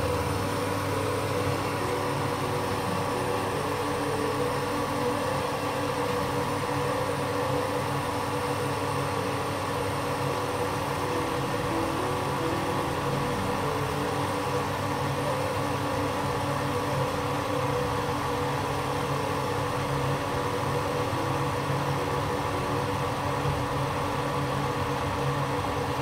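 Butterfly Rapid Plus induction cooktop running while it heats a steel mug: a steady hum from its cooling fan and coil.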